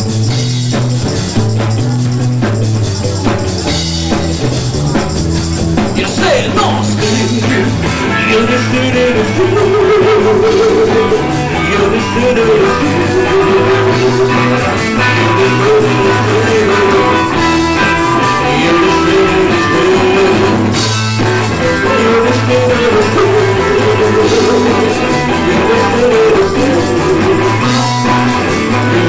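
Live rock band playing an instrumental introduction: electric guitar, bass and drum kit. A repeating guitar melody comes in about eight seconds in.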